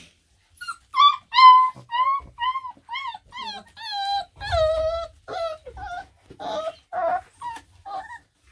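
Four-week-old Black and Tan Coonhound puppies whining and yelping in a quick series of short, high calls, each rising and falling in pitch; the later calls are lower and longer.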